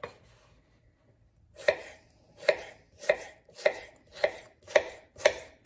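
Chef's knife dicing a cucumber on a wooden cutting board: after a quiet second and a half, a run of about eight even chops, roughly two a second, each striking the board.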